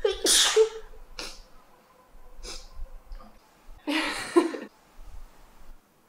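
A young woman sneezing twice into her cupped hands, once right at the start and again about four seconds in, with two quick breaths in between.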